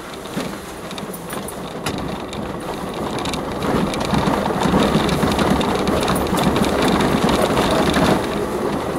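Off-road vehicle's engine and tyres heard from inside the cab while it drives a rutted, muddy unsurfaced track, with scattered clicks and knocks from the rough ground. The sound grows louder about four seconds in.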